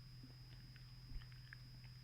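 Faint chewing with small mouth clicks and crackles of someone eating fast food, over a steady low electrical hum.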